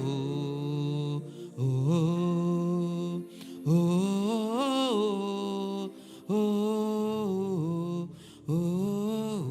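A single voice singing long, wordless held notes in a slow worship chant, about five phrases, each sliding up into the note and held for a second or two, with short breaks between.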